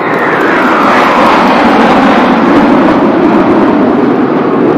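Formation of NF-5 jet fighters flying low past: a loud jet roar whose pitch falls steadily as the aircraft go by.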